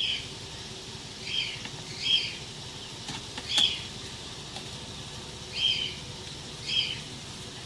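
A bird calling: six short, high chirps at irregular gaps, with a steady background noise.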